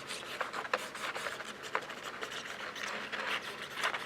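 Soft rubbing, scratching and scattered light ticks of cardstock being handled while liquid glue is applied along a paper hinge binding.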